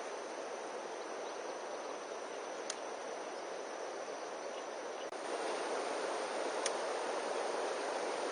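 Steady outdoor background noise, an even rush with a thin continuous high tone over it, a little louder from about five seconds in, with two faint clicks.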